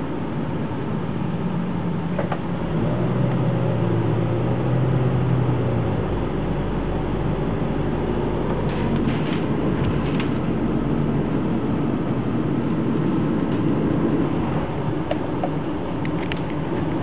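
Car driving at speed, heard from inside the cabin: steady engine, tyre and wind noise, with a few light ticks about halfway through and near the end.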